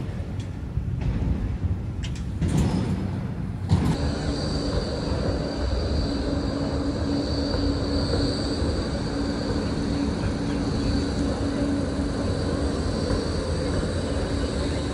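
Melbourne tram running close by: a steady electric hum and whine over a rumble of wheels. It takes over abruptly about four seconds in, after a knock, replacing rougher street noise.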